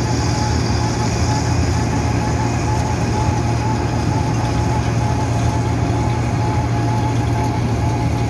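Wirtgen W 100 H cold milling machine at work: its diesel engine runs steadily under load while the milling drum cuts up the asphalt road surface and the conveyor carries the millings away.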